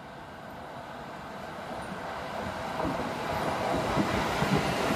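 Seibu 2000 series electric train approaching along the platform. Its wheel-on-rail rumble grows steadily louder, and from about three seconds in the wheels clack over the rail joints.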